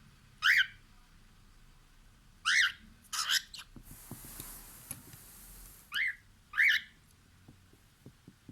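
Cockatiel giving short, loud chirping calls, about six in all, some singly and some in quick pairs. A faint high hiss sounds midway between them.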